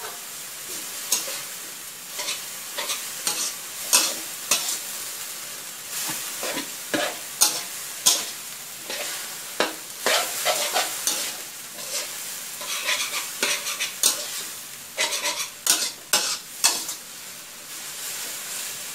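Fiddlehead fern and minced pork sizzling in a metal wok while a metal spatula stir-fries them, scraping and knocking against the pan at an irregular pace over a steady sizzle.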